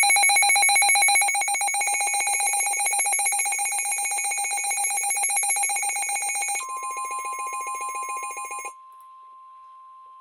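Emergency alert tones ahead of a severe thunderstorm warning on weather radio: a loud, rapidly pulsing electronic alarm that rings like a telephone bell. About two-thirds of the way through, a steady single-pitch warning-alarm tone starts beneath it; the pulsing stops about a second and a half before the end, and the steady tone carries on alone, quieter.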